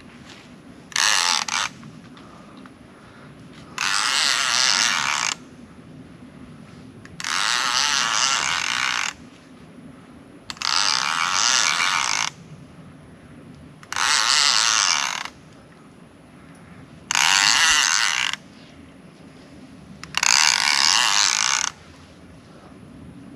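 A fishing reel being cranked in short bursts: the gears whir as line is wound in, seven times, each burst lasting one to two seconds and coming about every three seconds.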